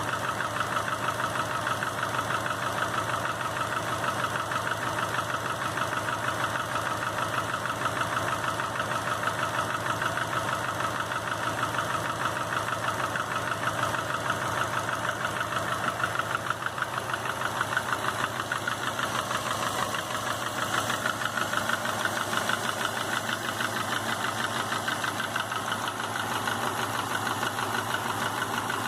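2005 Subaru Legacy GT's turbocharged 2.5-litre flat-four idling with a steady, rapid knock. The engine has just been rebuilt with a new crankshaft and bearings, and the owner has not found the cause of the knock despite good oil pressure and new timing components.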